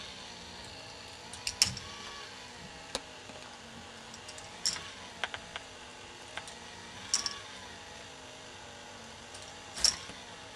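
K'nex ball machine running: its lift and gearbox make a steady hum with a slowly wavering pitch, while plastic balls clack sharply on the track about every two and a half seconds, with smaller clicks between.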